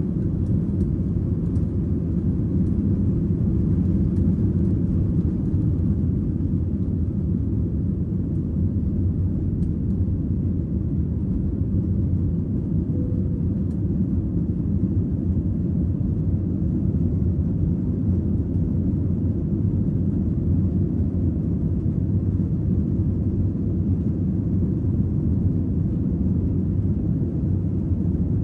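Jet airliner's engines at takeoff thrust heard from inside the cabin: a steady, deep rumble as the plane finishes its takeoff roll and climbs out.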